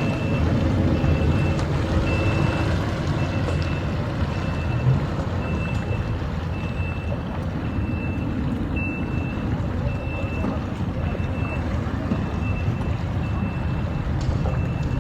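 A vehicle's reversing alarm beeping steadily, about one to two high beeps a second, over the low rumble of an engine.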